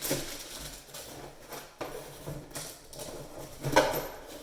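Faucet parts and packaging being handled: irregular rustling and light clicks, with one louder clatter near the end.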